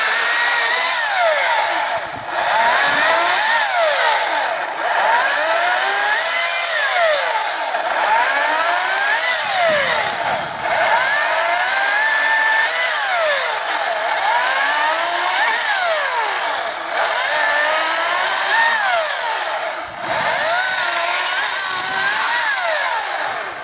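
Ryobi 14-inch 40-volt brushless battery chainsaw cutting through a spruce log. Its motor whine rises and falls in pitch as it cuts, with several brief dips where it eases off, and it stops near the end.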